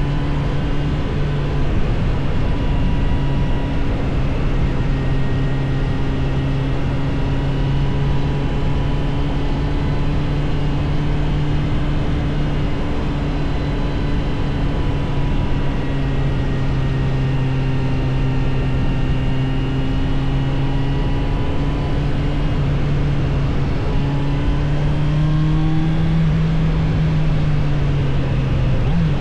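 Suzuki GSF600 Bandit's inline-four engine running steadily under way, over wind and road noise. The revs sag a little midway, climb gradually, then drop at a gear change near the end.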